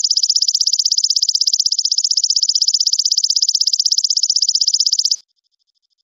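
High, rapid, evenly pulsed animal trill, loud and unbroken, that cuts off suddenly about five seconds in; a faint trill of the same kind runs on before and after it.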